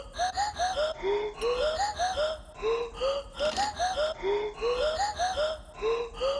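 Background music: a short looping phrase of rising, gliding notes that repeats about every second and a quarter over a steady low bass.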